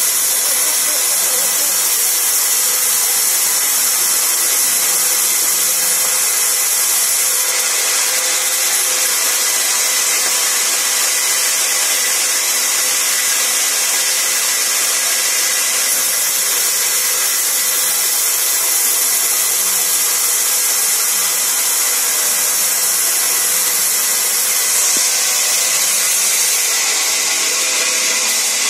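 Sawmill band saw running and ripping long thin wooden planks: a loud, steady, high hiss with a constant thin whine.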